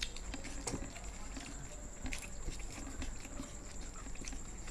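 Close-up eating sounds: scattered soft clicks and smacks of chewing, over a steady faint high-pitched whine and a low hum.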